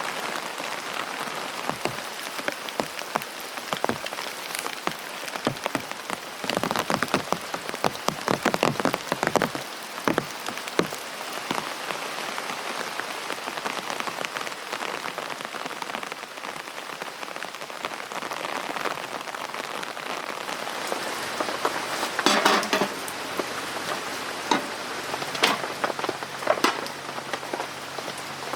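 Rain falling on a tent: a steady hiss full of sharp drop taps, with heavier, louder spells about seven to ten seconds in and again around twenty-two seconds.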